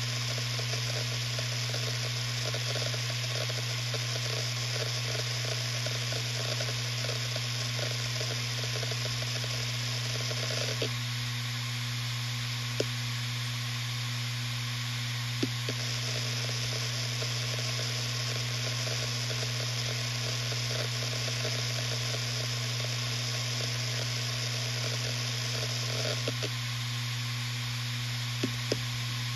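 Western Digital RE 4 TB (WD4000FYYZ) 7200 RPM hard drive spinning with a steady hum and hiss. The heads seek in rapid crackling chatter for about ten seconds, go quiet for a few seconds apart from a couple of single clicks, then chatter again for about ten seconds more.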